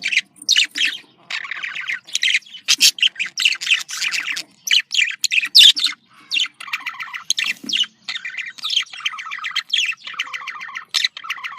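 Budgerigars chattering and warbling: quick chirps and scratchy, buzzy warbles in an unbroken stream with short gaps.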